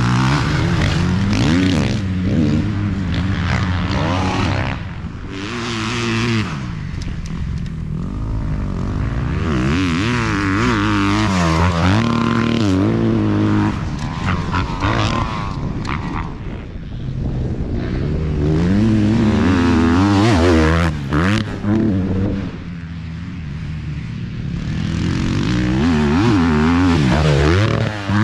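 Dirt bike engine racing at full throttle, its pitch rising and falling again and again as it revs up, shifts and backs off through the turns.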